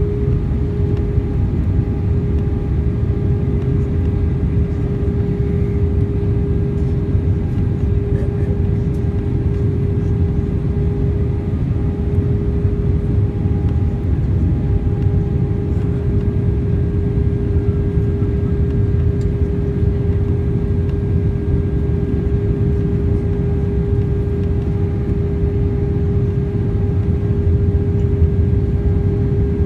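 Cabin noise inside an Airbus A319-131 in flight: a steady rumble of airflow and the IAE V2500 engines, with a constant hum and no change in pitch.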